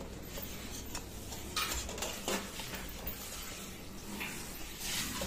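Stainless steel pots and utensils clinking and rattling a few times as they are carried.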